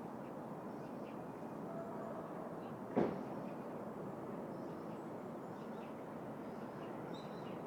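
City park ambience: a steady hum of distant city traffic with a few faint bird chirps, broken by one sharp knock about three seconds in.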